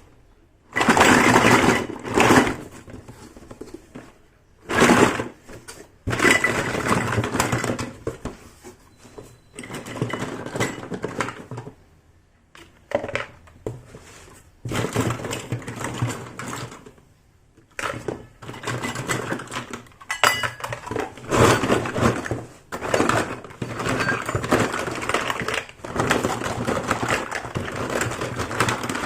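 Toy kitchen pieces and their packaging being unpacked and handled: irregular bursts of rustling and clattering with short pauses between.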